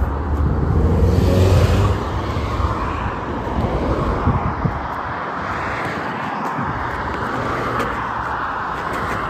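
Road traffic passing close on a dual carriageway: a vehicle's engine drone and tyre noise are loudest in the first two seconds as it goes by, then a steady rush of passing traffic.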